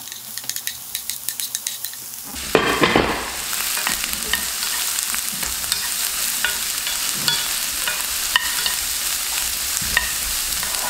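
Chopped onion frying in hot oil in a non-stick pan, stirred with a wooden spoon. Light crackling at first, then about two seconds in more onion goes into the pan and the sizzle jumps suddenly louder, settling into a steady frying hiss with scattered pops and spoon scrapes.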